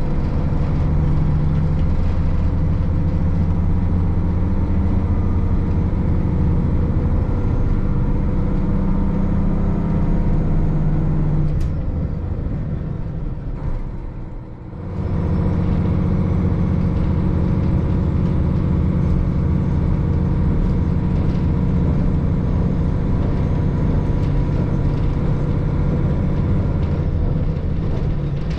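KiHa 40 diesel railcar's engine running steadily, a low hum heard from inside the car. The sound dips briefly about halfway through, then picks up again.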